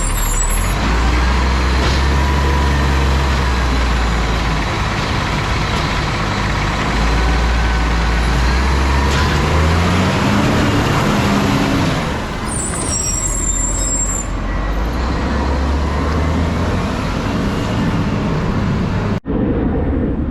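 Garbage truck's diesel engine running under load, its pitch rising and falling as it revs, with a short hiss of air a little past the middle. The sound breaks off abruptly near the end.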